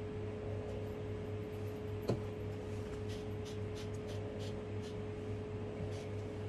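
Wooden hand mills grinding rock salt and pepper, heard as faint gritty crunches, with one sharp knock about two seconds in, over a steady low electrical hum.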